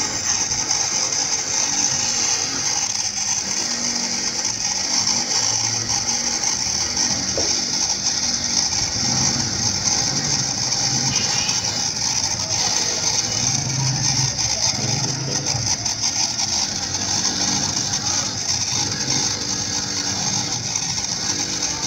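A bench grinder fitted with a wire brush wheel runs steadily while dismantled Honda CD70 crankshaft parts are pressed against it to scrub off dirt. It makes a constant high scratching sound over the motor's hum.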